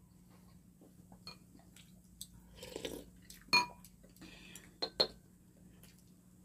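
Chopsticks and spoons clinking against ceramic bowls in a few sharp, ringing clicks, the loudest about three and a half seconds in, with quiet chewing between them.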